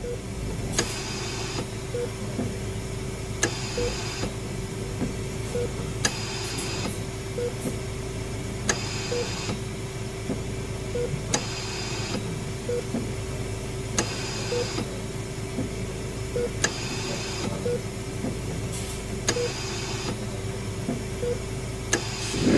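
Horror-hospital sound-effects ambience: a steady hum under short beeps about every two seconds, with a brief hissing, whirring mechanical stroke, each starting with a click, repeating about every two and a half seconds.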